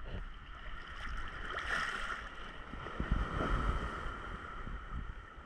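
Sea water lapping and sloshing around a camera held at the surface, with uneven low thumps, strongest a little past the middle.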